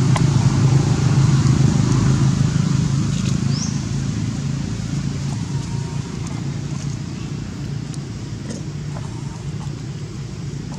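A steady, loud low hum, like a motor running, that eases off slightly after the first few seconds. A brief high rising squeak comes about three and a half seconds in.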